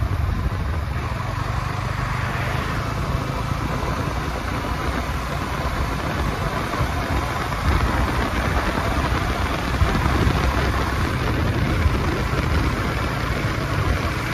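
Yamaha R15 V4 motorcycle's 155 cc single-cylinder engine running at a steady cruise, mixed with steady wind and road noise from riding.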